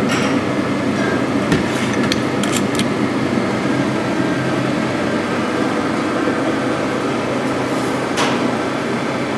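Steady rushing hum of kitchen ventilation, with a few faint light clicks about two seconds in and again near the end.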